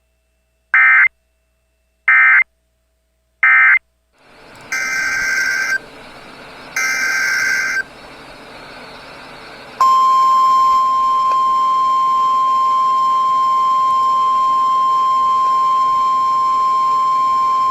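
Emergency Alert System SAME header data bursts, three short buzzy warbling bursts about a second apart, then radio hiss with two more longer data bursts. About ten seconds in, the NOAA Weather Radio 1050 Hz warning alarm tone begins, one steady loud single-pitched tone that holds.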